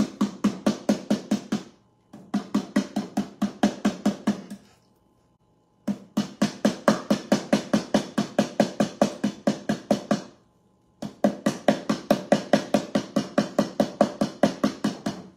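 Stencil brush pouncing paint through a plastic stencil onto a wooden drawer front: quick, even taps about five a second, in runs of a few seconds broken by three short pauses.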